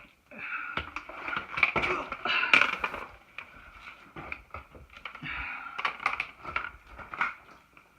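A hiker breathing hard while working through a narrow rock squeeze, with repeated short scrapes and knocks of boots and gear on rock.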